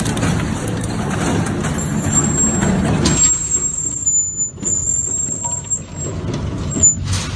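Electric grinding machine running, a dense grinding noise with a steady high whine. About three seconds in it drops to a quieter, thinner run with a higher-pitched whine, and a short loud burst comes near the end.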